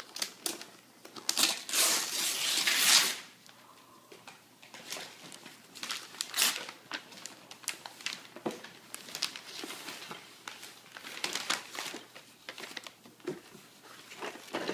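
Gift wrapping paper being torn and crumpled as a present is unwrapped: a loud stretch of crinkling and ripping about two seconds in, then lighter, scattered crinkles and rustles.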